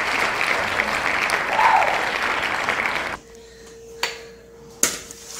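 Crowd applause and cheering lasting about three seconds, which cuts off suddenly. After it come a steady hum and a few sharp clinks of a plate.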